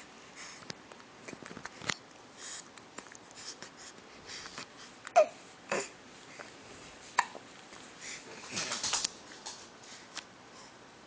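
Baby hiccuping: a few short, sharp hics with a quick falling squeak, about five, six and seven seconds in. A short flurry of small breathy sounds follows near nine seconds, with faint rustles between.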